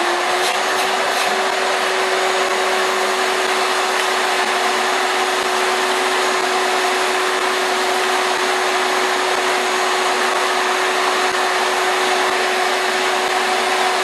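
Shop vacuum running steadily, a constant whine over a rush of air, as it sucks sawdust up its hose through a bucket cyclone dust collector. A few light ticks come in the first second or so.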